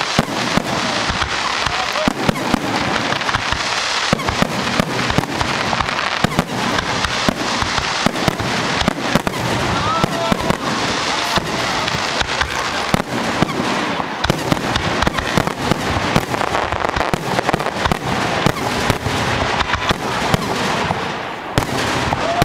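Professional aerial fireworks display: shells bursting in rapid, unbroken succession, a dense stream of bangs and crackle several times a second.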